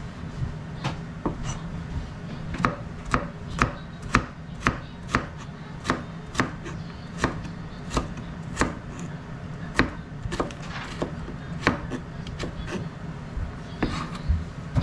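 Kitchen knife dicing carrot on a cutting board: the blade knocks sharply against the board about twice a second, in a somewhat uneven rhythm.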